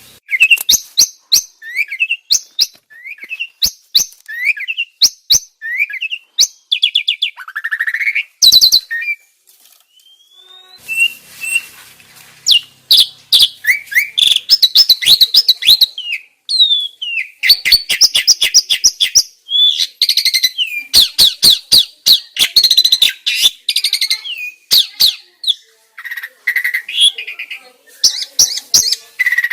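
Starling (jalak) song of the kind played as a masteran training recording for pet starlings: rapid chattering, sharp clicks and short squeaky whistles, broken by brief pauses about ten and sixteen seconds in.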